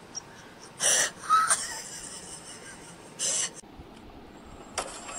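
Three short breathy wheezes, the first about a second in and the last near three and a half seconds.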